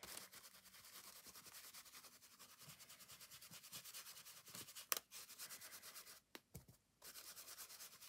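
Ink blending tool rubbed over a stencil on textured paper, pushing ink through in quick, even strokes: a faint, fast, rhythmic scrubbing. A single sharp click about five seconds in.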